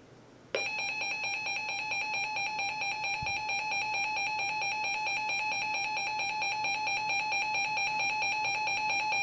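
Emergency Alert System attention signal: a steady, harsh two-tone alarm that starts abruptly about half a second in and holds at one level. It is the tone that announces an emergency warning broadcast.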